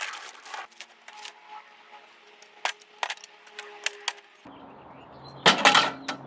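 Light metallic clicks and clinks of small metal parts being handled, with a louder clatter about five and a half seconds in.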